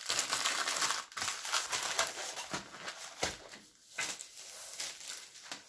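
Plastic and foil packaging crinkling and rustling as it is handled, with a few sharp taps mixed in.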